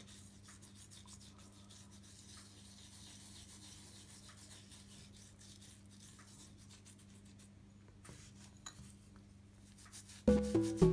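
Faint gritty rubbing of a sugar and coconut-oil scrub worked over facial skin with the fingertips in circles, over a low steady hum. Music comes in loudly near the end.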